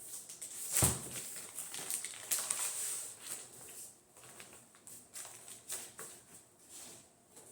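Plastic wrapping crinkling and rustling as it is pulled off a new rug, with a single thump about a second in.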